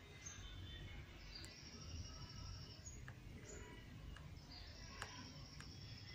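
Faint high bird chirps and whistled calls in the background, two of the notes held steadily for over a second each, with a few soft clicks between them.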